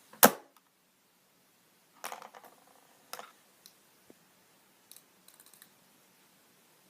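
A fidget spinner being struck in an attempt to break it: one loud sharp knock just after the start, then several softer clicks and clatters as it is handled.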